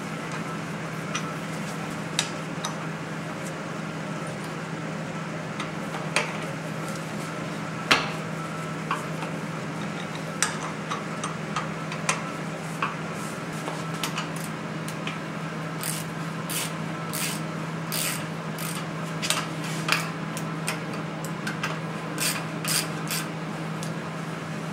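Hand tools working on a motorcycle's front-fork triple clamp: scattered metal clicks and knocks from a wrench or ratchet and loosened parts, coming more often in the second half. A steady low hum runs underneath.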